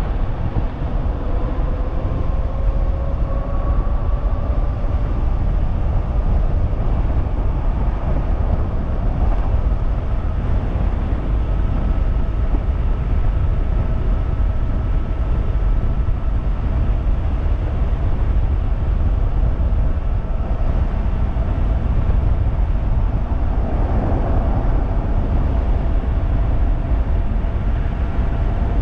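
Electric motor of a 3000-watt DIY e-bike whining under power, its pitch rising over the first several seconds as the bike accelerates and then holding steady at speed, over a heavy, steady rush of wind on the microphone.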